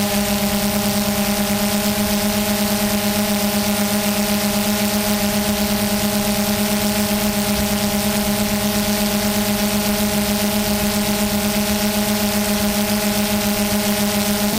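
DJI Phantom 2 quadcopter's electric motors and propellers humming steadily in flight, heard from the GoPro mounted on the drone: one low, even hum with a fast, regular pulse, over a steady hiss of air.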